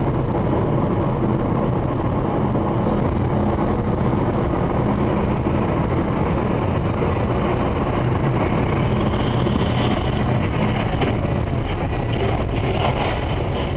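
Steady engine and road noise of a moving vehicle, with a few faint clicks near the end.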